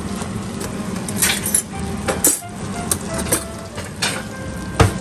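Kitchenware clinking and knocking: about six sharp clinks and clacks of metal utensils and dishes, the loudest near the end, over a steady low hum.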